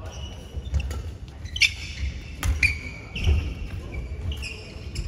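Badminton rally: a few sharp racket strikes on the shuttlecock, with sports shoes squeaking on the court mat and footsteps thudding as the players move.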